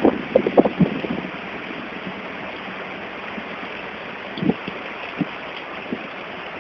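Heavy rain pouring down in a steady hiss, with a few short knocks in the first second and again about four and five seconds in.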